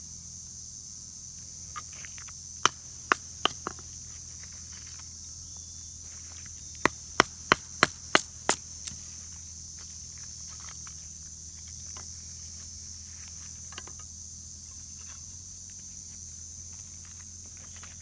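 Sharp wooden knocks of kindling being chopped or split for a campfire, in two runs: four knocks a few seconds in, then about seven quicker ones near the middle. A steady high-pitched insect drone runs under them.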